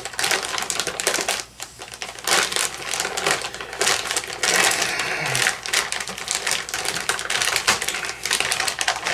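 A plastic bag of Angie's Boom Chika Pop popcorn crinkling and crackling as hands pinch and tug at its sealed top, struggling to tear it open. A near-continuous crackle, with a short lull about a second and a half in.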